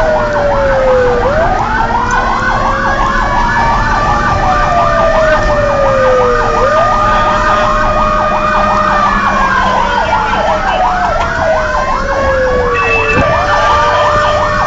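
Fire engine sirens heard from inside the moving truck's cab: a slow wail that rises over about two seconds and falls over about four, repeating, with a fast yelping warble of about five sweeps a second over it. The truck's engine drones underneath.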